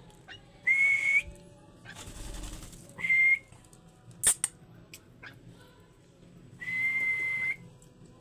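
Budgerigars in an aviary chirping: many short faint chirps, with three loud, drawn-out, steady whistled calls, the last one about a second long. A sharp click comes about halfway through.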